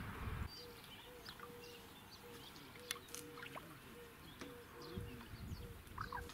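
Birds chirping with many short, high calls, over a low, even call that repeats about twice a second. A couple of sharp clicks come about three seconds in.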